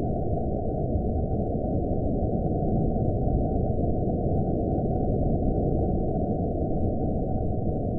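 Horror-film ambience: a steady, muffled low rumble of dark noise with no high end, unchanging throughout.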